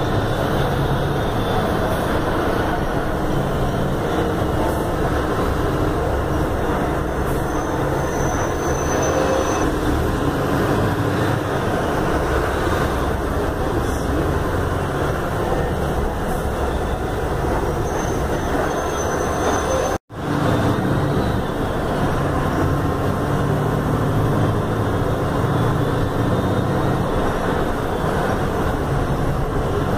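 Inside a Mercedes-Benz OF-1519 city bus under way: steady diesel engine hum and road noise. The sound cuts out for a split second about two-thirds of the way through.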